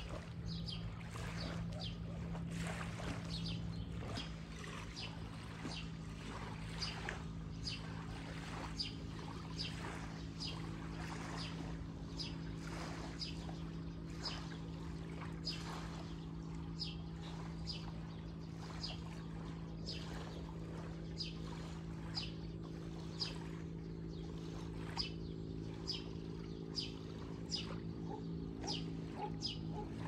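A steady low motor hum, with light footsteps about twice a second from someone walking.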